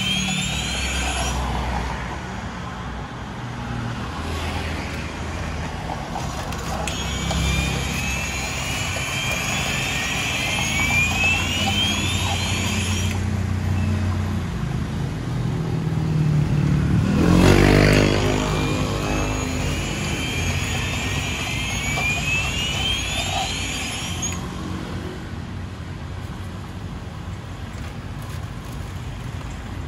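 Street traffic running steadily, with one vehicle passing close about halfway through, the loudest moment. Through three stretches, a high chirp rises over and over, about once a second.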